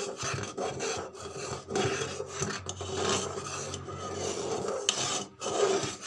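A metal spoon scraping and stirring around the inside of a pressure cooker in repeated rasping strokes. The cooker is full of boiling soapy water, which is loosening the burnt-on residue from its bottom.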